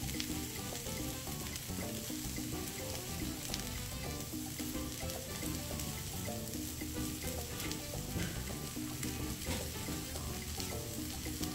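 French toast slices and chicken sausage patties sizzling steadily on a hot flat-top griddle.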